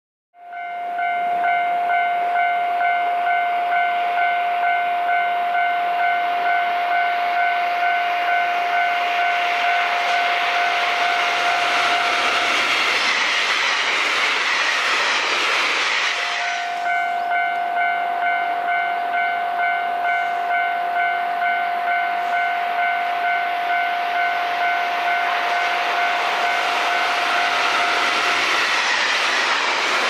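Railway level-crossing alarm ringing its repeated electronic bell tone while a train passes with a rising and falling rush of wheels on rails. The bell stops a little before halfway, starts again a few seconds later, and another train rushes in near the end as it falls silent.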